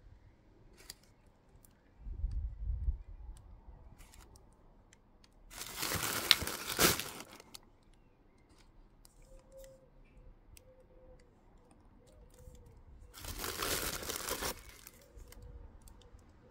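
White tissue paper being rustled and crinkled by hand in two bursts, each about one and a half to two seconds long, the first about five and a half seconds in and the second near thirteen seconds in. A brief low rumble comes about two seconds in.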